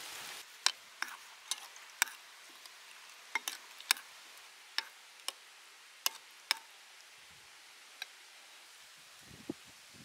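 Metal spoon clinking against a ceramic bowl while stirring a liquid sauce: about a dozen sharp, irregular clinks. A short pour of liquid hisses into the bowl at the very start.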